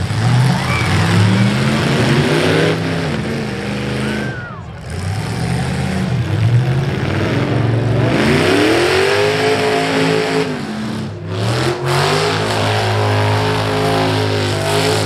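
Several demolition derby cars' V8 engines revving hard, their pitch climbing and falling again and again as they overlap, with the biggest climbs about eight and twelve seconds in.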